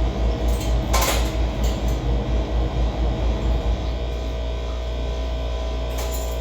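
Livestock feed mixer running: a deep rhythmic throb of about four to five pulses a second that evens out into a steady drone about four seconds in, with a single clank about a second in.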